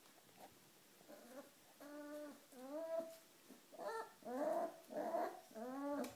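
Four-week-old dachshund puppies whining and yelping as they wrestle in play, about seven short cries, getting louder toward the end.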